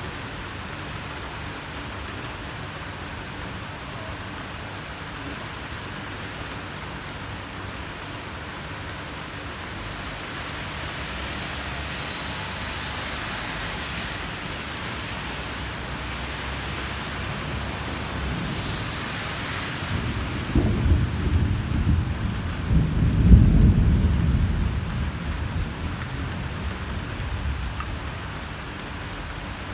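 Heavy rain falling steadily, with a rolling peal of thunder about two-thirds of the way in, cracking first and then rumbling loudest a few seconds later before it dies away.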